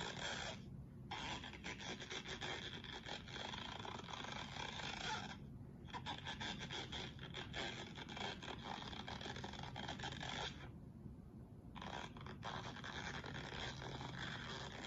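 Cartoon stretching sound effect: a dense, crackling scrape-and-creak noise with no clear pitch, running in long stretches broken by brief pauses three times.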